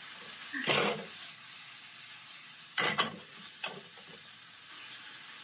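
Pork and shrimp sizzling in a frying pan with a steady high hiss while being stir-fried with long cooking chopsticks. Three short knocks or scrapes of the chopsticks against the pan come about a second in, around three seconds in, and shortly after.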